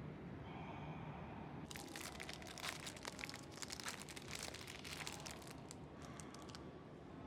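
Crinkling and crackling of something being handled: a quick, dense run of small clicks that starts about two seconds in and thins out after about five seconds.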